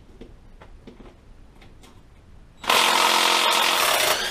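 A few light tool clicks, then about two and a half seconds in a power tool runs in one steady burst of about a second and a half, undoing a front motor mount bolt on a Harley-Davidson Knucklehead engine.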